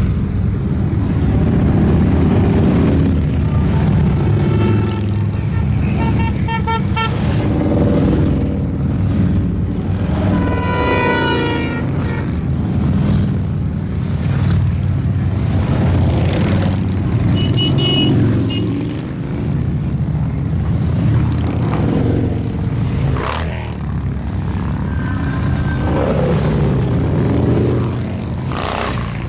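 A stream of motorcycles rumbling steadily past, with horns tooting several times over the engine noise.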